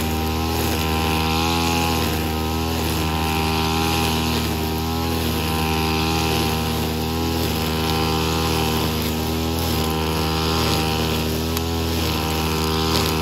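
Brush cutter with a nylon trimmer-line head, its small engine running steadily at a constant high speed.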